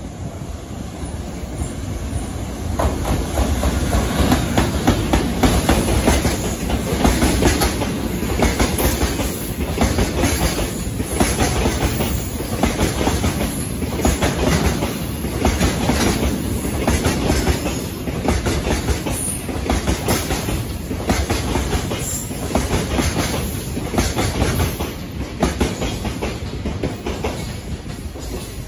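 A long freight train of tank wagons, hauled by an electric locomotive, running past close by: a steady rumble with a regular clickety-clack as the wagons' wheels cross rail joints. It builds up about two seconds in and fades away near the end as the last wagons pass.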